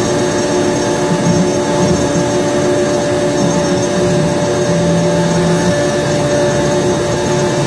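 CNC router spindle running with a steady whine while it cuts wood, with a lower hum that changes every second or so as the machine moves.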